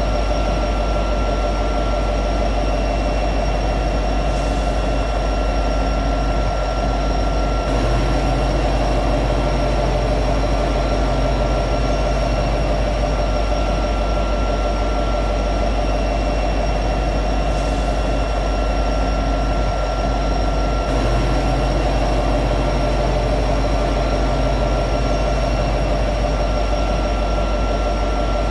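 EMD SD70ACe diesel-electric locomotive running at high idle: its 16-cylinder two-stroke EMD 710 diesel gives a steady drone with a few constant tones on top.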